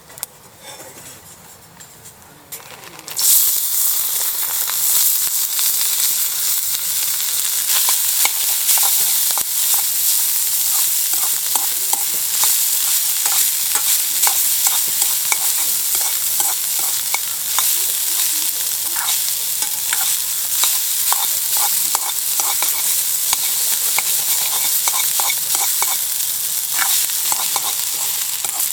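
Food dropped into a hot wok starts sizzling suddenly about three seconds in, then keeps frying with a steady loud hiss while a spatula stirs and scrapes with many small clicks.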